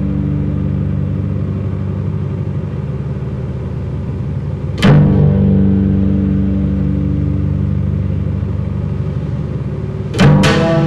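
Bass guitar letting long, low notes ring and die away slowly, with a fresh note struck about five seconds in and two more in quick succession near the end.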